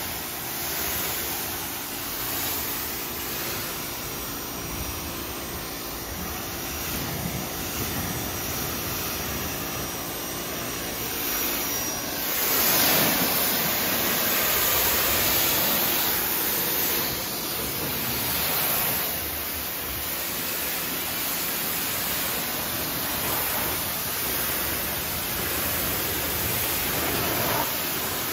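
Ryobi 1900 PSI electric pressure washer spraying water onto the car body, a steady hiss that grows louder for several seconds in the middle as the jet comes closer.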